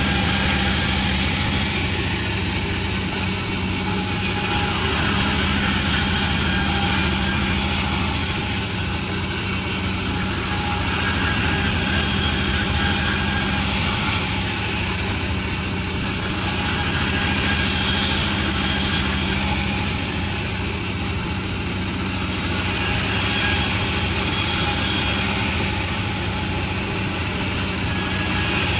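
Sawmill running steadily with a continuous low machine hum. Its loudness swells and eases every few seconds, and a high hiss comes and goes in stretches of a few seconds.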